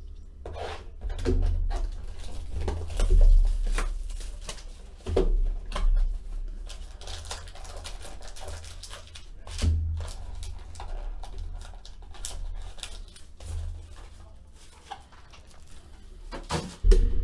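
A cardboard box of Elite Extra Edition baseball cards being torn open by hand and its foil packs pulled out: tearing cardboard, crinkling wrappers and light knocks on the table, in short irregular bursts.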